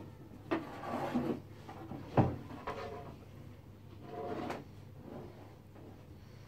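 Furniture being handled and shifted: a click, then scraping and sliding, a sharp knock about two seconds in, and another slide about four seconds in.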